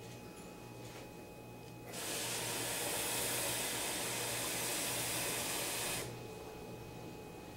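Kitchen tap running for about four seconds, switched on and off abruptly, drawing water to measure out for bread dough.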